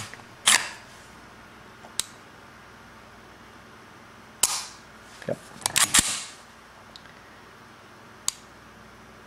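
Norinco 1911A1 .45 ACP pistol worked by hand with an empty chamber: the slide being cycled and the hammer dry-fired, a series of sharp metallic clicks and clacks. The loudest come about half a second in, about four and a half seconds in, and as a quick cluster around six seconds, with fainter single clicks in between.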